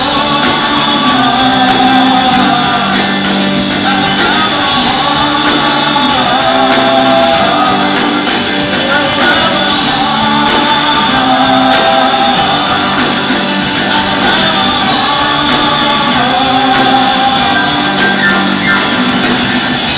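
Live rock band playing loudly through a concert PA, with electric guitars, bass, drums and a lead singer, heard from within the audience.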